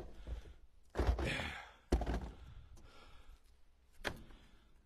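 Split seasoned red oak firewood being stacked by hand in a pickup truck bed: pieces of wood knocking against each other, with sharp knocks about one, two and four seconds in.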